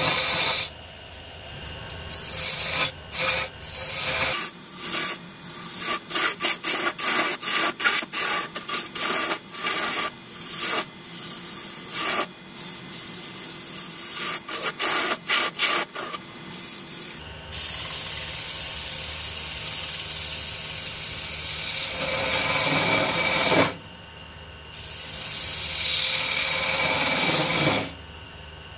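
Gouge cutting into a spinning branch on a wood lathe, shavings peeling off with a scraping hiss. The first half comes as many short, broken strokes; after that the cuts run longer and steadier over the lathe's low hum, with two brief pauses where the tool lifts off.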